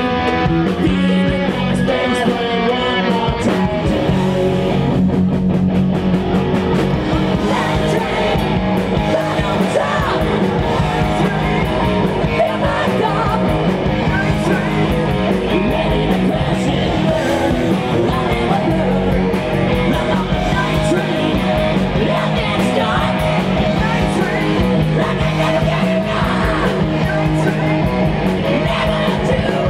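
Live hard-rock band playing: distorted electric guitar, bass guitar and drum kit, with a male lead singer.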